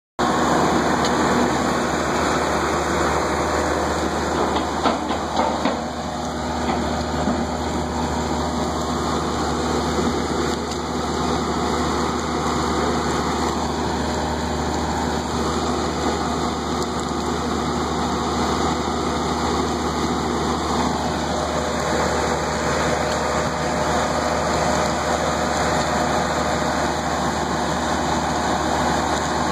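Bark-processing machinery running steadily with a constant low hum, as pine bark mini nuggets pour off a conveyor onto a pile; a few sharp knocks about five seconds in.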